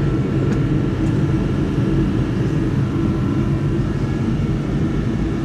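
A steady low mechanical drone with a faint hiss, unchanging, like a running machine or an idling engine.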